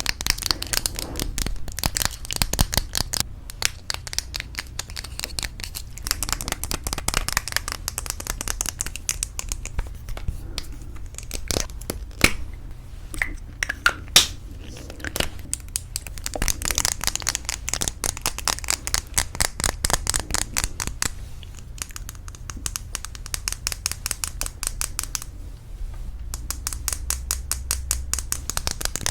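Rapid tapping and handling on lipstick cases: a fast, dense run of light taps, with a few louder single knocks about halfway through.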